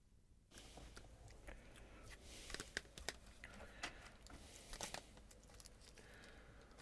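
Faint rustling, crinkling and light clicks of boxes and packaging being handled and searched through, starting about half a second in.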